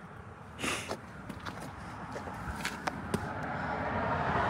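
A vehicle approaching on the road, its tyre and road noise growing steadily louder over the second half, over a few light scuffs and clicks of footsteps.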